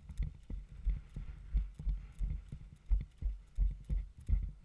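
Running footsteps on grass, heard as heavy low thuds about three times a second through a camera worn by the runner, with light clicks and rattle of gear.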